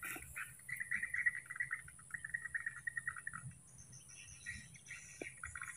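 Swiftlets chirping in rapid, fast-repeating twitter trains, a noisy chorus that pauses about three and a half seconds in and starts again near the end. A steady, thin high-pitched tone runs over it.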